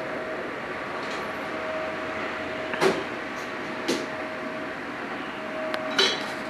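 Distant steam train running as a steady hiss and rumble with a faint steady hum, broken by three sharp clicks about three, four and six seconds in.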